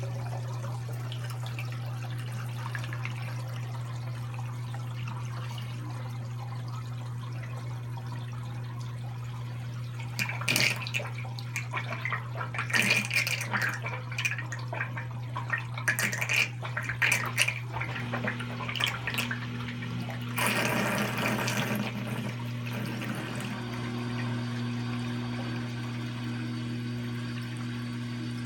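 Water draining from a washing machine's drain hose into a black rubber bag in a utility sink, over a steady pump hum. From about ten seconds in, water splashes and gushes out into the sink in irregular spurts for about twelve seconds, and a second, higher hum joins about two-thirds of the way through.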